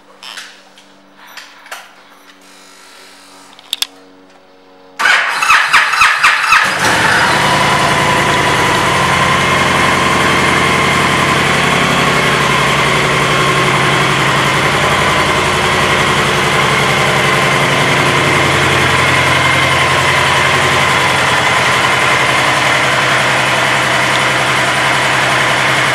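A few faint clicks, then about five seconds in the 2015 Honda Interstate's 1312 cc V-twin is started: a short burst of cranking that catches within about two seconds. After that it runs steadily at idle.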